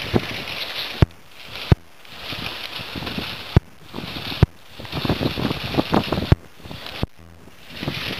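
Storm wind gusting against the microphone, swelling and dropping every second or two, with several sharp knocks scattered through it.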